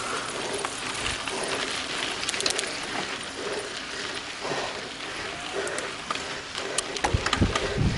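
Mountain bike ridden over a dirt trail: steady tyre and trail noise with scattered small rattles and clicks, and a louder low rumble coming in near the end.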